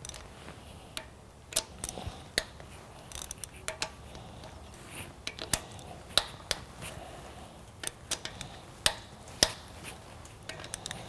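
Irregular metallic clicks and clinks of a hand tool working the camshaft holder bolts on an NSX cylinder head as they are loosened.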